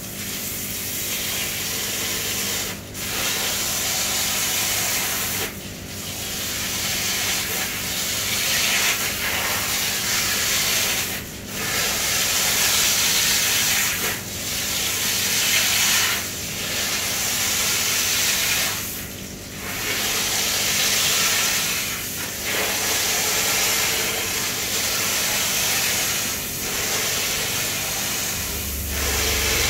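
Water spraying hard from a hose onto pond filter media as it is washed clean. It is a steady hiss broken by short pauses every few seconds.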